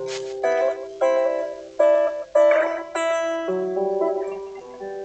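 Guitar played freestyle: single notes and chords are plucked one after another, a new one about every half second to a second, each ringing on and fading before the next.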